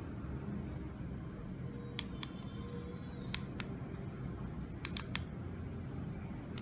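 Sharp plastic clicks and taps from a red plastic toy bow tie being handled and turned over in the hands, coming in small groups of two or three, over a steady low hum.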